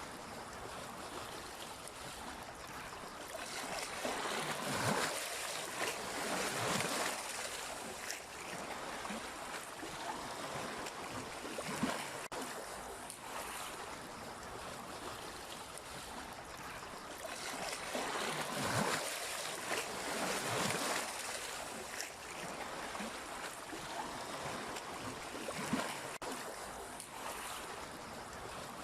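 Sea waves washing against the shore: a steady rush of water that swells louder twice, a few seconds in and again past the middle, with small splashes inside each surge.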